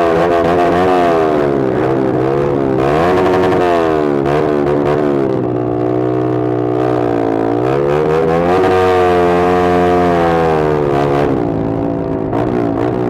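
Motorcycle exhaust through a Pro Liner muffler with no dB killer, running loud as the engine accelerates and eases off. The pitch climbs and drops several times, with a steadier stretch in the middle.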